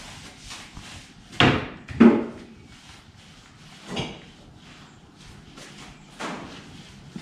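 Knocks and thuds from a plywood floor sheet on a work table while resin is rolled onto it. The loudest two come about one and a half and two seconds in, with lighter knocks near four and six seconds.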